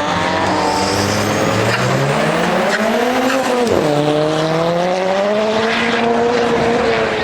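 A performance car's engine running hard, its note climbing for a few seconds, then dropping sharply about three and a half seconds in and holding steady, with tyre squeal.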